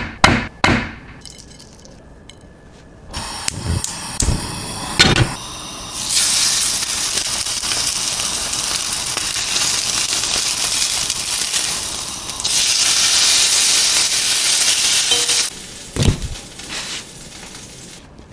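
Wagyu steak sizzling in a hot pan, a steady hiss that swells about six seconds in and drops off a few seconds before the end. Sharp clinks and knocks come at the start, around four to five seconds in, and near the end.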